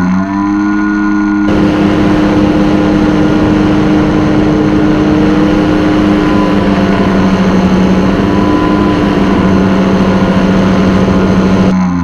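A paramotor trike's engine and propeller run steadily in flight. The noise cuts in about a second and a half in and cuts off just before the end. A droning music track plays at the start and continues beneath it.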